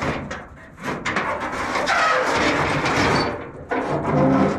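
Rusty sheet-metal hood of a Chevrolet G-506 truck being worked loose and lifted off: a few sharp clicks, then a long stretch of metal scraping and rubbing, and a short pitched groan near the end.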